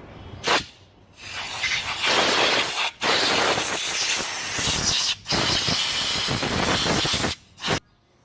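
Compressed-air blow gun blasting dirt and bug debris off an outboard's water pump housing: a short puff, then three hissing blasts of about two seconds each with brief breaks between, and one more short puff near the end.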